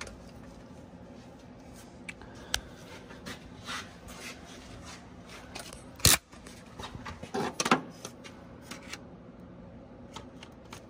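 Scattered clicks and knocks of a serpentine belt being worked onto the engine's pulleys, with a ratchet held on the belt tensioner. One sharp knock comes about six seconds in, and a quick cluster of knocks follows a second or so later.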